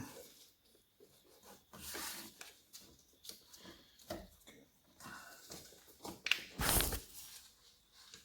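Scattered clicks, knocks and scrapes of engine parts and tools being handled during an engine rebuild, with one louder scrape or rustle about two-thirds of the way through.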